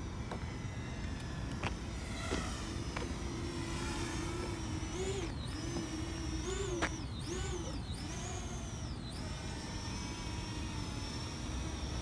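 Parrot Anafi quadcopter's propellers humming from a short distance, a thin steady drone whose pitch dips and comes back up several times in the middle as the motors slow and speed up.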